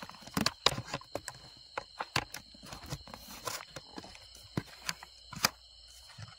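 Footsteps crunching on dry twigs and leaf litter, an uneven run of sharp crackling steps. Behind them is a faint, steady high drone of night insects.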